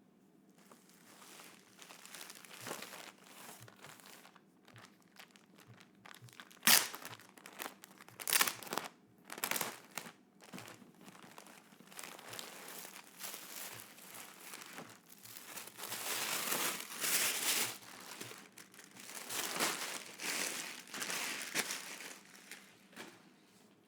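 Packaging crinkling and rustling as items are unwrapped by hand, in irregular handling noises with a couple of sharp loud crackles and longer stretches of dense crumpling.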